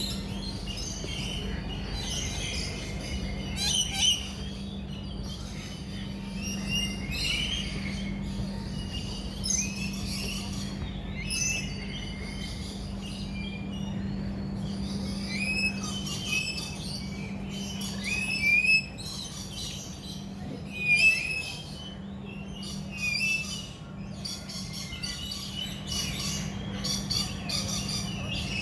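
Birds chirping and calling, with many short high calls repeating and overlapping throughout, and the loudest calls at about 4, 19 and 21 seconds in. A steady low hum runs underneath.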